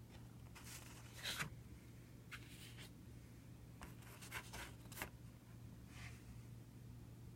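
Faint scraping and rustling of packaging being handled during an unboxing: a handful of short scrapes and rubs, the strongest about a second in and between four and five seconds in, over a low steady hum.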